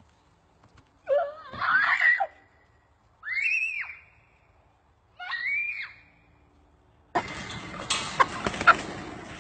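A person screams three times, high shrieks about two seconds apart that each rise and fall in pitch, while a rooster chases them. A few seconds later a steady rustling noise with scattered clicks begins.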